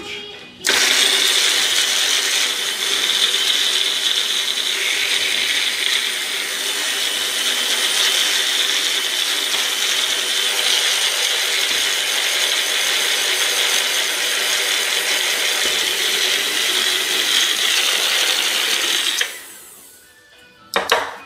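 Single-serve personal blender running steadily for about eighteen seconds, grinding garlic, cilantro and olive oil into a thick paste, then switched off and winding down. A brief clatter near the end as the cup is twisted off the base.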